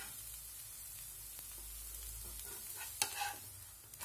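Wheat dosa sizzling softly on a hot tawa. About three seconds in, a metal spatula scrapes once against the pan as it is worked under the dosa's edge to lift it.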